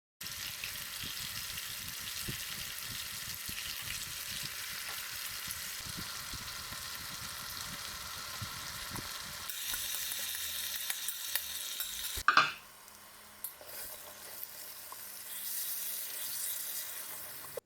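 Food frying and sizzling in a pan, with stirring and small clicks. About twelve seconds in comes a sharp loud knock, the loudest sound here, after which the sizzle is fainter.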